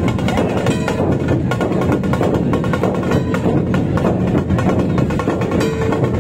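Dhol-tasha pathak playing live: many large barrel-shaped dhol drums and tasha drums beaten together in a loud, dense rhythm of strokes.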